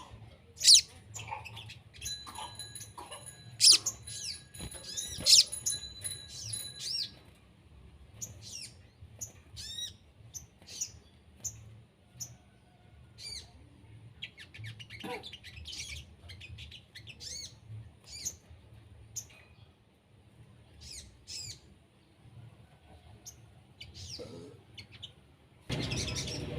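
Small songbird chirping and calling: many short, sharp high notes and quick whistled glides, with a few sustained steady high tones in the first few seconds. A faint low hum runs underneath, and a louder rushing noise starts abruptly near the end.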